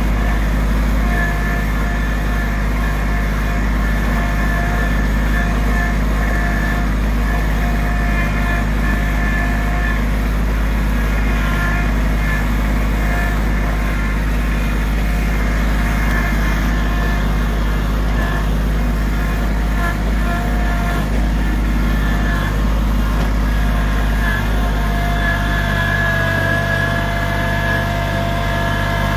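Small engine of a motorized cart running steadily as it drives along, with a constant low hum and a higher whine that comes and goes.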